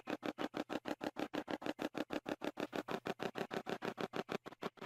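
Spirit box (a 'Hack Shack' sweeping radio) scanning through stations: a rapid, even chopping of radio static, about ten short bursts a second.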